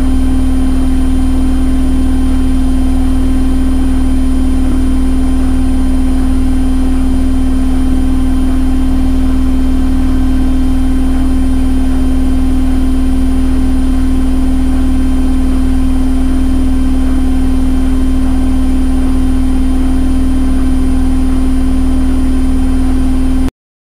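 Washing machine running with its drum spinning: a steady motor hum with a faint pulse about once a second. It cuts off abruptly near the end.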